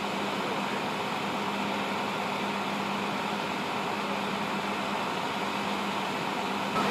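Steady mechanical hum with a constant low drone, the sound of idling emergency vehicles and machinery. Right at the end a truck's reversing beeper starts.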